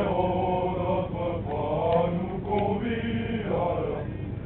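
A group of men singing a marching song in unison while they march. Long held notes come in about four phrases with short breaks between them.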